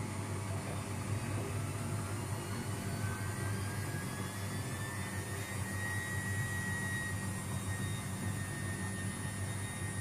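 Luxor WM 1042 front-loading washing machine running, with a steady low hum. A motor whine rises in pitch from about three seconds in, then holds steady.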